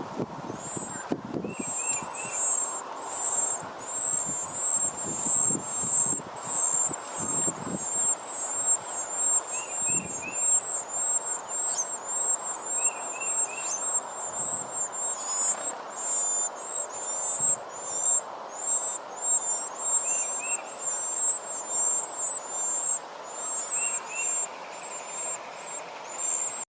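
Nestling birds begging: a constant stream of rapid, very high-pitched chirps, with a short three-note call from another bird repeated every few seconds.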